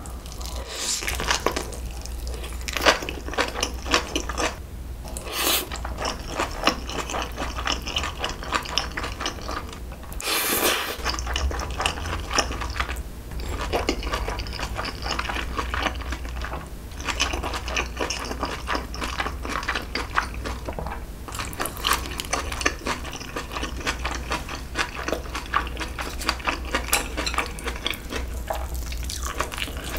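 Close-miked chewing of a large mouthful of noodles and kimchi: continuous wet smacking and squishing mouth sounds, with one louder burst about ten seconds in. A steady low hum runs underneath.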